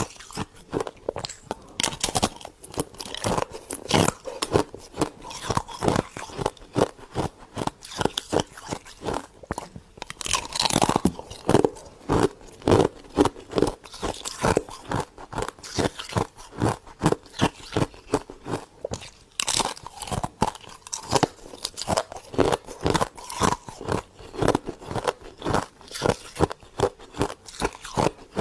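Close-up crunching and chewing of freezer frost: rapid, crisp crunches as mouthfuls of soft ice crystals are bitten and chewed, coming in louder spells with short lulls between.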